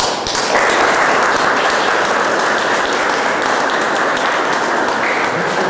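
Audience applauding: many people clapping steadily together, starting suddenly and holding at full strength for about five seconds.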